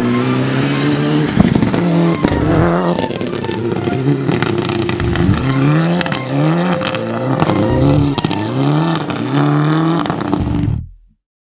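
Mitsubishi Lancer Evo IX rally car's turbocharged four-cylinder engine at full throttle, its note climbing and dropping back through several quick upshifts, with sharp clicks throughout. It cuts off abruptly near the end.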